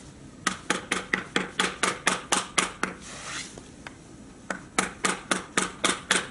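Mallet tapping lightly on an old Yanmar K2 diesel engine, two quick runs of about four taps a second with a short pause between. The tapping is meant to knock loose dust caught in a leaking valve.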